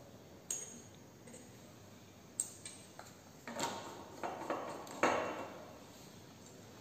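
Laboratory glassware clinking and knocking as it is handled: a single light clink, then a quick run of about half a dozen taps and clinks with brief ringing, the loudest near the end.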